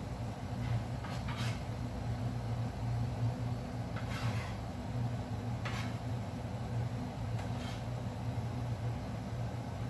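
Pot of water simmering at the boil on a gas stove, a few brief bubbling bursts heard over a steady low hum.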